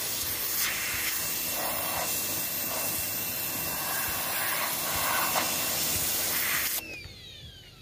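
Electric pressure washer spraying: a steady, loud hiss of the water jet on the surface, which cuts off suddenly near the end. A brief falling whine follows as the machine shuts off with the trigger released.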